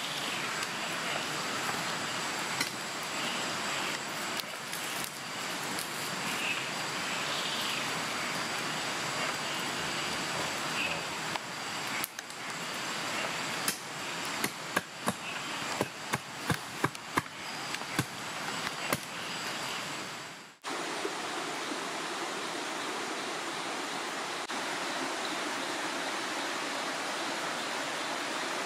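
Steady rushing of a river or stream. Partway through comes a run of about a dozen sharp clicks and knocks, irregularly spaced and the loudest sounds. The sound then cuts off abruptly, and the water's rushing carries on.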